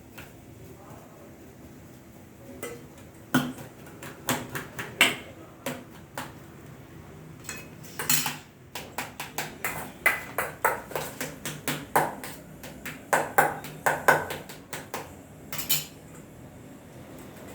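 Potatoes being mashed in a bowl with a utensil, making irregular knocks and clinks against the bowl. They come in quick runs of several a second from a couple of seconds in until shortly before the end.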